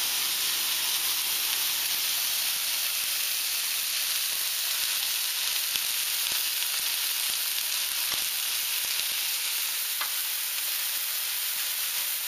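Turkey cutlets and turkey patties frying in nonstick pans on a gas stove: a steady, even sizzle, with a few faint ticks.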